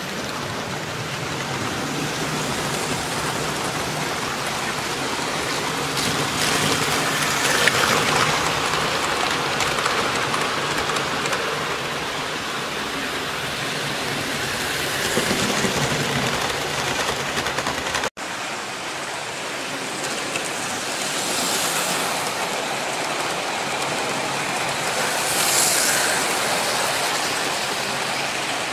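Hornby 00 gauge model trains running round a layout: a steady rushing rumble of wheels on the rails and motors, swelling louder twice as trains pass close. The sound drops out for an instant about eighteen seconds in.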